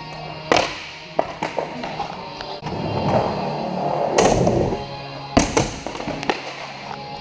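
Skateboard wheels rolling on a concrete floor, with several sharp clacks and slaps of the board popping and landing that echo through a large hall; the loudest come about half a second in, at about four seconds and at about five and a half seconds.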